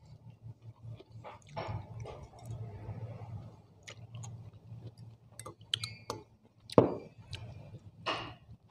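A metal fork clinking and scraping against a ceramic bowl, several ringing clinks close together in the second half with one louder knock, amid close-miked chewing of juicy fruit salad. A low steady hum runs underneath.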